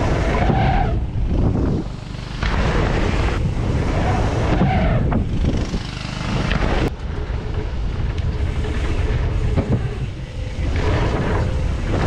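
Wind rushing over an action camera's microphone as a mountain bike rides at speed, a loud, uneven rumble with a sharp click about seven seconds in.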